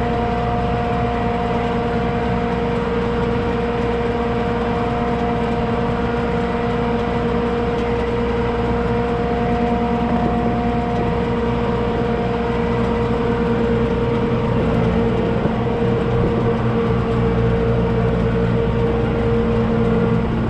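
An engine or machine running steadily at constant speed, a continuous drone with a steady whine, a little louder in the second half.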